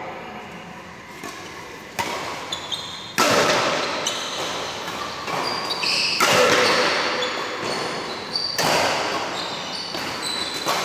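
Badminton rally in a large echoing hall: four sharp racket strikes on the shuttlecock, two of them much louder smashes, with sneakers squeaking on the court between hits.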